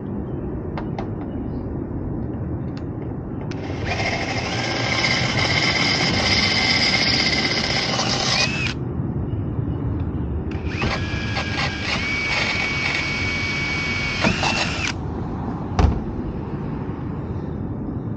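Cordless drill run in two steady bursts of about five and four seconds, its whine gliding briefly in pitch as each stops, while working on a ladder-rack mount. A single sharp knock near the end.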